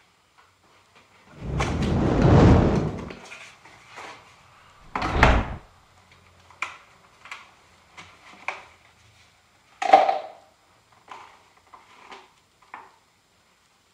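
Handling noises while a mower engine's air filter is changed: a long rustling scrape about a second and a half in, a thud near five seconds, then light clicks and knocks as the air cleaner housing is opened and the filter element pulled out, with a sharper knock about ten seconds in.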